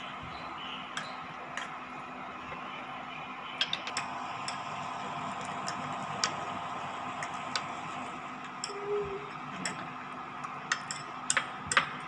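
A metal spoon clinking and scraping against a glass bowl while stirring corn flour into milk, in irregular light clicks, the loudest near the end, over a steady faint hum.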